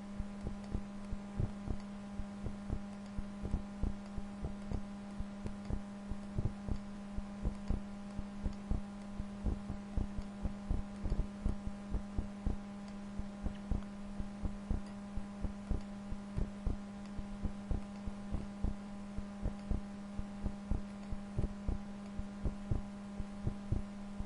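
Computer mouse clicking irregularly, two or three soft clicks a second, as points are placed and adjusted in digitizing software, over a steady electrical hum.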